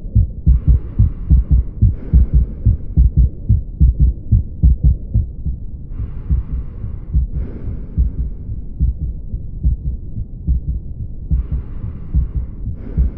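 Heart auscultation recording of hypertrophic obstructive cardiomyopathy (HOCM): quick, regular heartbeats as heard through a stethoscope, with a faint hiss coming and going.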